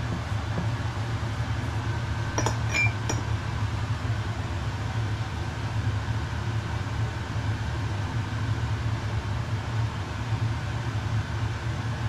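Steady low hum with a few quick, light clinks about two and a half seconds in.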